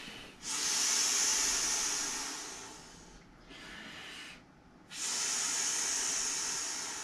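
Breath blown by mouth into the valve of an inflatable Intex Jumbo Jet airplane: two long, airy blows, the first starting about half a second in and the second about five seconds in, with a shorter, quieter breath between them.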